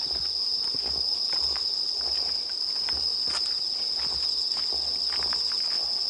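Night insects singing in one steady, high-pitched chorus, with footsteps on a paved path.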